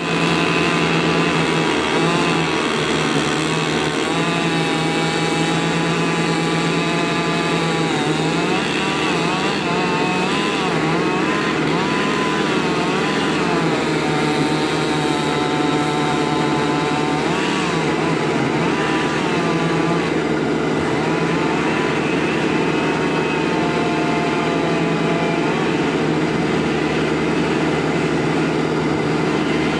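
Engines running: a steady, deep engine hum underneath a higher engine note whose pitch wavers up and down throughout, with no pause.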